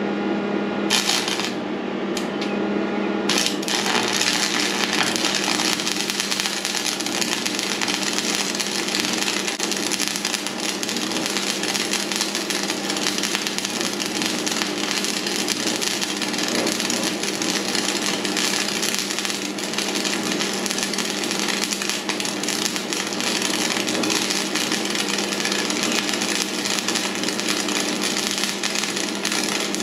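Stick welding with a Polaris AAA low-hydrogen rod on a Lincoln AC 'tombstone' welder set to 120 amps. The arc strikes about a second in and stutters a couple of times, then crackles and hisses steadily as the bead runs through rust, mill scale, spray paint and grease.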